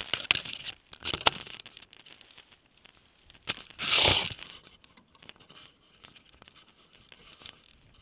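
Rustling and crackling in dry leaf litter and brush as the small camera is carried through it, with several sharp clicks and knocks in the first second or so and a louder rustle about four seconds in, followed by lighter scattered crackles.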